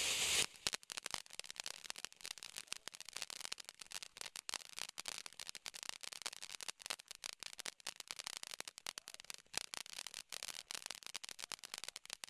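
A loud hissing spray of a firework cuts off about half a second in. Dense, irregular crackling follows, many small sharp pops a second.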